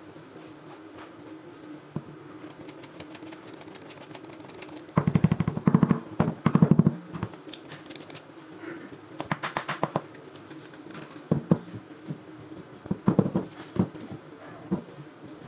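Plastic laser toner cartridge being shaken and tapped while it is refilled with toner: bursts of rapid rattling taps, the longest about five to seven seconds in, with shorter bursts later.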